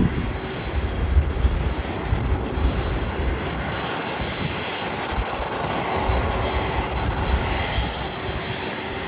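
Jet engine noise from an Airbus A380's four Rolls-Royce Trent 970 turbofans: a steady, even rushing sound with a thin high whine running through it and an uneven low rumble underneath.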